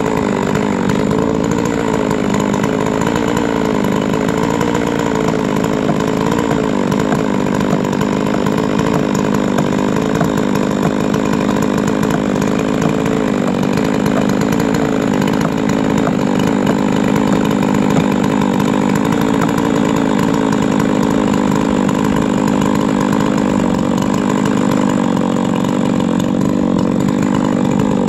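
Huztl MS660 clone two-stroke chainsaw idling steadily, unattended on the log.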